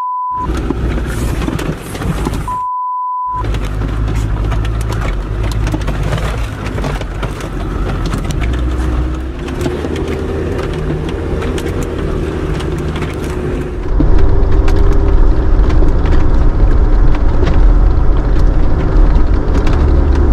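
Four-wheel-drive vehicle's engine running as it drives slowly over a rutted mud track, with scattered knocks and rattles from the rough surface. A steady beep tone cuts in twice in the first few seconds, and about two-thirds of the way through the rumble gets heavier and louder.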